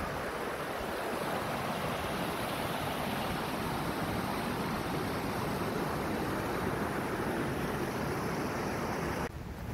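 Steady rush of stream water flowing over rock, cutting off abruptly near the end.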